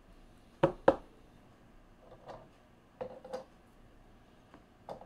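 Trading cards and a clear plastic card holder handled on a tabletop: two sharp plastic clacks in quick succession under a second in, then softer taps and clicks.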